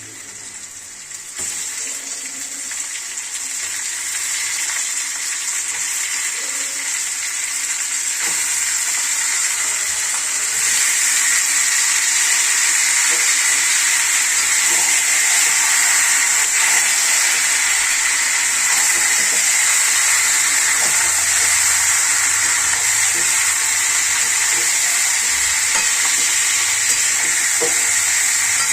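Chicken pieces sizzling as they fry in hot mustard oil in a pan. The hiss builds steadily over the first ten seconds, then holds level.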